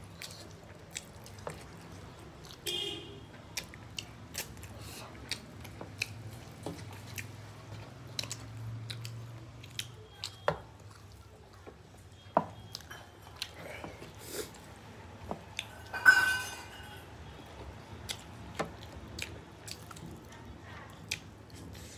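Close-up chewing of rice and curry eaten by hand, with many short wet mouth clicks scattered throughout. About sixteen seconds in there is a louder clink with a brief ring, and a low steady hum runs underneath.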